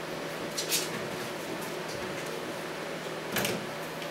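Felt-tip marker writing on a whiteboard: a short scratchy stroke under a second in and another about three and a half seconds in, over a steady room hiss.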